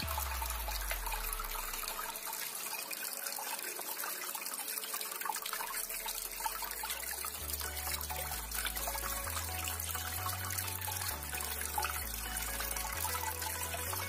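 Water from a tabletop rain fountain falling in many thin streams, a steady splashing with no breaks.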